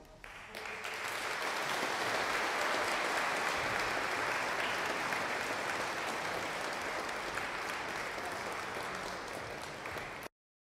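Audience applauding: many people clapping together, starting just after the band's last chord, holding steady and thinning a little before it stops abruptly near the end.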